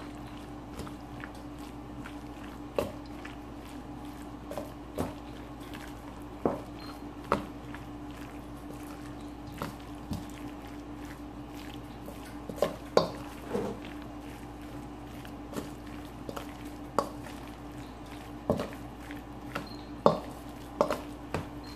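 A metal spoon stirs a chunky eggplant and ground-chicken mixture in a stainless steel mixing bowl, giving irregular clinks and scrapes against the bowl, over a steady low hum.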